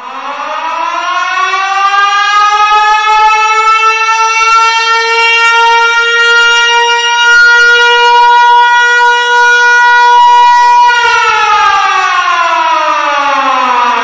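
Siren sounding the signal to break the Ramadan fast: it winds up, rising in pitch over the first couple of seconds, holds one steady tone, then starts falling in pitch about three seconds before the end.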